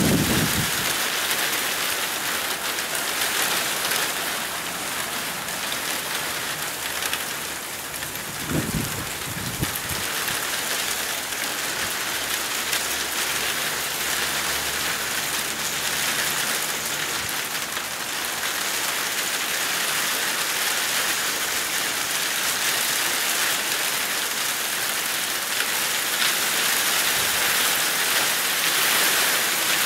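Steady rain in a storm: a dense, even hiss of drops hitting surfaces, growing a little louder toward the end. Two brief low thumps, one at the start and one about nine seconds in.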